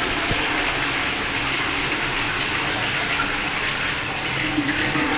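Toilet flushing: a steady rush of water through the bowl.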